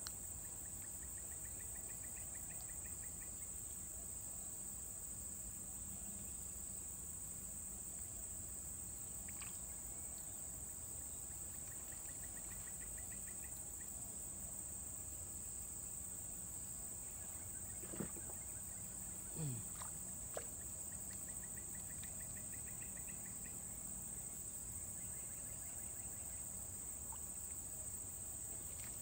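Insects droning steadily at a high pitch, with short, rapid chirping trills from another insect repeating every several seconds. A few faint clicks and a brief falling squeak come about two-thirds of the way through.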